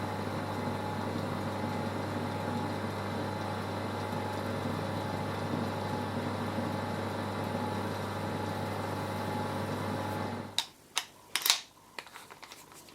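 Small electric drill running steadily at low speed, driving the lathe spindle through a wooden adapter to spin a bowl slowly for finishing. The motor stops suddenly near the end, followed by a few sharp clicks.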